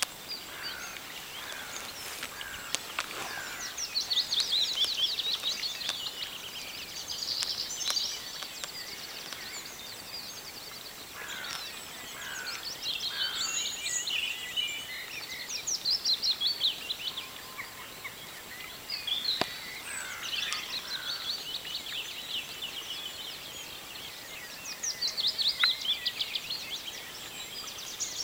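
Songbirds singing: bouts of rapid, trilling phrases a few seconds apart, with some lower, shorter notes in between.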